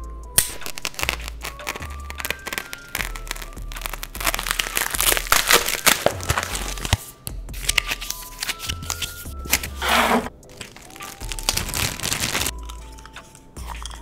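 Paper and plastic packaging being torn open and crinkled by hand, a dense run of crackles and rips with one louder rip about ten seconds in, over background music with a steady bass line.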